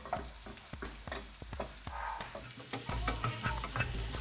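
Diced onion and chopped garlic frying in oil in a hot pan, sizzling, while a utensil scrapes and clicks against the pan as they are stirred. The sizzle grows louder about two-thirds of the way through.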